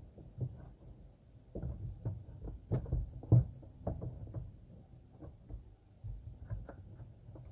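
Hummer H3's plastic radiator fan shroud being worked into place by hand: irregular knocks and taps of plastic against the radiator and surrounding parts, the sharpest a little over three seconds in.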